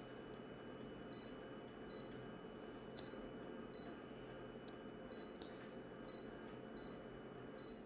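Faint electronic device: short high beeps repeating about every three-quarters of a second over a steady high whine and a low hum, with a few light clicks.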